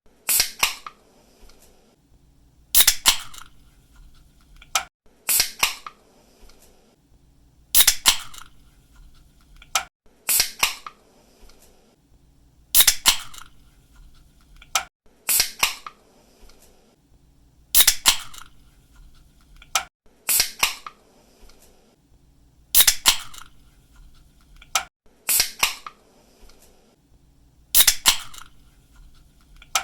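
Aluminium soda or energy-drink can opened by its pull tab: a sharp snap followed by a brief hiss, repeated about every two and a half seconds.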